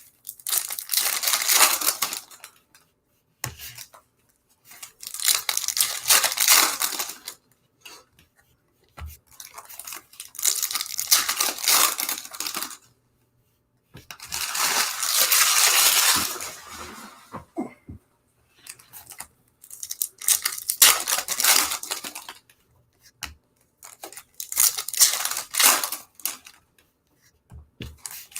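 Foil wrappers of Topps Chrome baseball card packs being torn open and crinkled, in about six bursts of tearing and rustling a few seconds long with short quiet gaps between.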